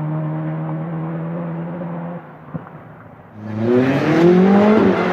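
Turbocharged Nissan 200SX engine held at steady revs, dropping off about two seconds in. About a second later an engine revs up hard, rising in pitch and getting much louder.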